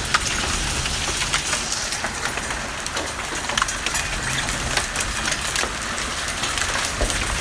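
Hail and heavy rain pelting a wooden deck and railing: a steady hiss of rain dotted with many sharp ticks of hailstones striking.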